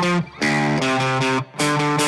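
Background music with guitar: held chords, each lasting about a second and cut off sharply.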